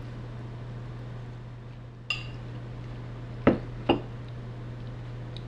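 Tableware sounds: a utensil clinks once against a bowl, then two knocks about half a second apart as the bowl is set down on the table. A steady low hum runs underneath.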